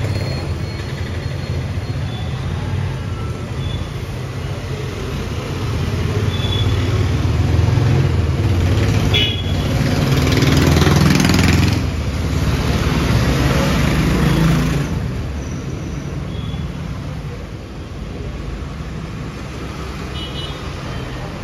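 Road traffic: motor vehicles running past on a town street, with a steady low rumble. One vehicle goes by loudest about halfway through, then fades.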